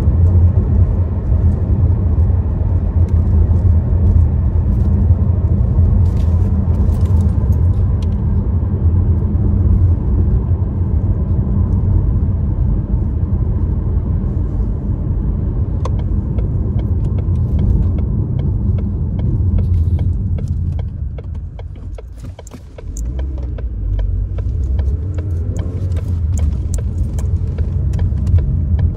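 Car being driven, a steady low engine and road rumble heard from inside the cabin. The rumble sinks and quietens for a moment about three-quarters of the way through, then builds again. There are light clicks and rattles in the second half.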